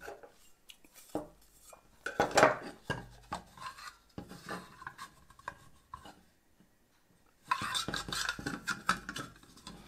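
Plastic light bracket and flat metal mounting plate clicking and clattering as they are handled and fitted together on a wooden tabletop, in scattered short knocks. Near the end comes a denser stretch of rubbing and scraping as the plate is worked onto the bracket.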